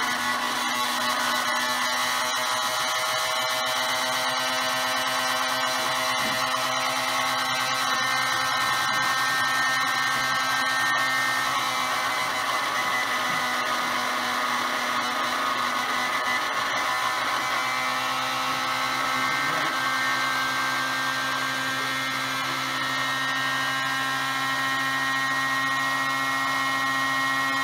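Countertop blender motor running continuously at a steady speed, an even motor whine.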